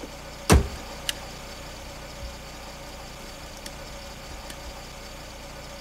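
A car's hood slammed shut: one loud bang about half a second in, followed by a lighter click. A car engine idles steadily underneath.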